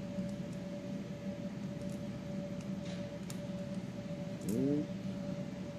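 Faint ticks and clicks of fingers working wires and spade connectors off a power switch, over a steady background hum. A short murmur from the worker comes about four and a half seconds in.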